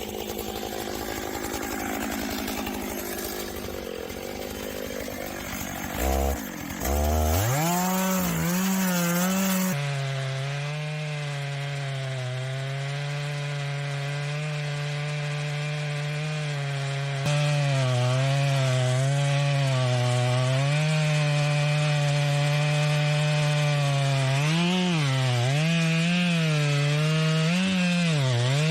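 Two-stroke chainsaw cutting wood at high revs, its engine pitch sagging under load and picking up again over and over. The sound changes abruptly twice.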